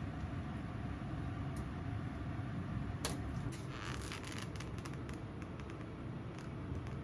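Steady low kitchen rumble, like a range-hood fan running. From about three seconds in it is joined by light clicks and crinkly rustles of an aluminium tray of pork steaks being picked up and handled.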